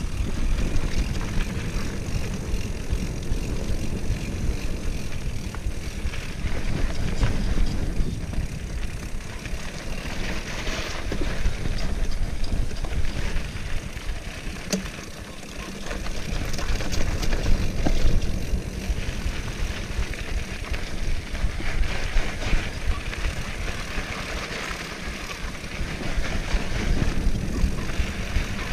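Wind buffeting the microphone of a mountain bike ride down a dirt trail, a steady rumble with tyre noise and occasional clicks and rattles from the bike. The rush eases briefly about halfway through.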